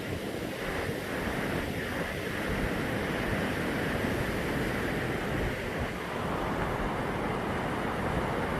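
Steady rush of the Brúará river's waterfall, with wind buffeting the microphone in a low, uneven rumble beneath it.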